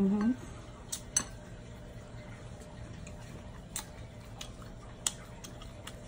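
Eating by hand at a table: a short rising 'mm' hum at the start, then scattered sharp little clicks and taps as shrimp are dipped in a bowl of sauce, eaten, and picked from a plate.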